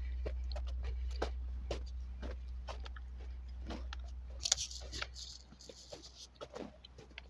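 Irregular small crunches and clicks, like footsteps and handling of a hand-held recorder, over a low steady rumble that fades about halfway through, with a brief hiss near the middle.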